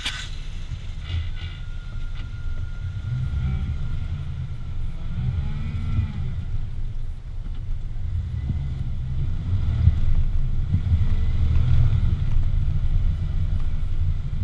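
Off-road vehicle's engine running at low revs as it drives slowly over a dirt track: a steady low rumble that grows a little louder in the second half.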